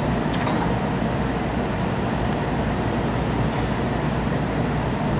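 Steady low hum inside a Shinkansen carriage standing still at a station platform, with a faint click about half a second in.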